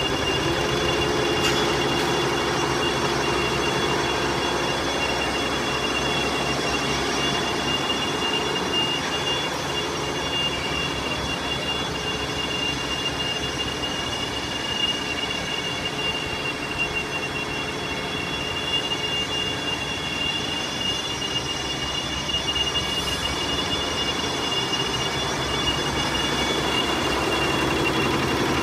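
GEMSY 16-head, 9-needle flat embroidery machine running, its heads stitching together in a steady rapid mechanical chatter with a constant high whine.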